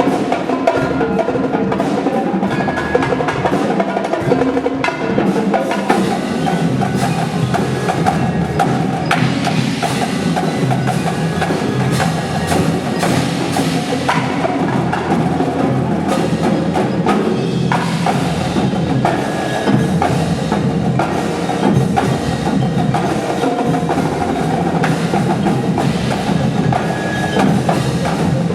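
Indoor drumline playing: mallet keyboards and other pitched pit percussion carry sustained chords and melody over a continuous pattern of sharp drum strikes.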